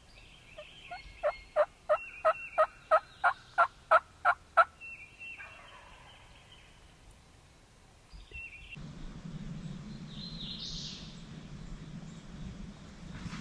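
A series of about eleven loud turkey yelps, evenly spaced at roughly three a second. Short, high bird chirps sound before and after it, and a steady low hum starts about nine seconds in.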